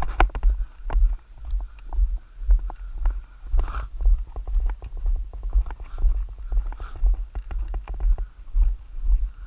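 Footsteps crunching on a gravel dirt road, with many sharp crackling ticks over an uneven low rumble on the microphone.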